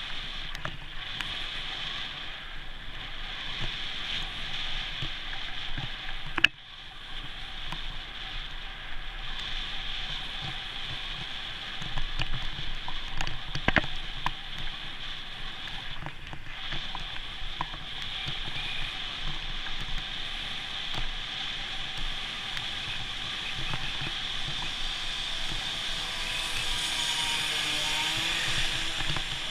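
Steady wind and road noise on a bicycle-mounted GoPro riding along a road, with a sharp knock about six seconds in and a smaller click a little before halfway.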